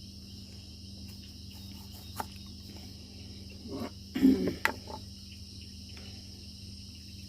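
Crickets chirring steadily in the background over a low steady hum. About four seconds in there is a short, louder sound, followed by a sharp click.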